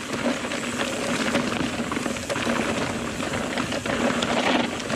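Mountain bike rolling fast down a rocky trail, heard close up from a point-of-view GoPro: a dense, steady crunch and rattle of tyres over loose rock, with many small clicks from the bike.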